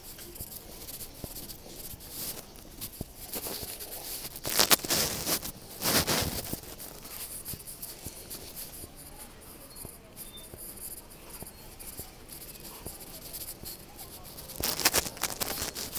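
Shop background ambience, steady and low, broken by a few short bursts of noise: two about four and a half and six seconds in, and a cluster near the end.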